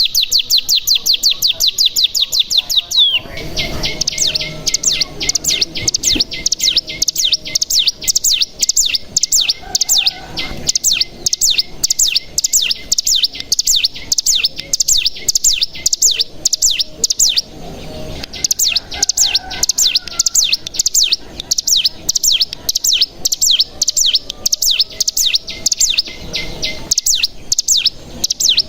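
Ciblek gunung, a prinia, singing its long rapid 'bren' trill: a fast run of high, falling notes, roughly eight a second, with a couple of brief pauses. This is the excited, full song that keepers play as a lure to set other cigun singing.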